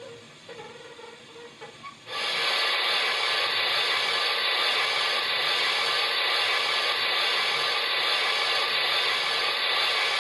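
Steam hiss from the sound decoder of a model class 94 steam tank locomotive, switching on abruptly about two seconds in and blowing steadily for about eight seconds with faint regular pulses, then stopping. A few quiet clicks come before it.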